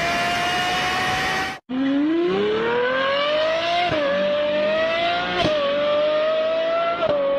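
High-revving car engine held at a steady high pitch, cut off abruptly. Then a second car engine accelerates hard, its note climbing and dropping back three times at each upshift.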